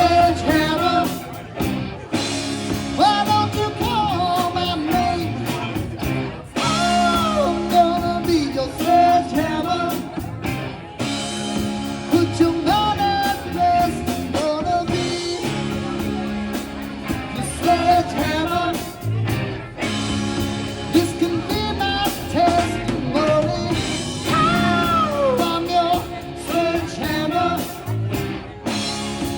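A band playing a rock song, with a lead singer over guitar and steady low bass notes.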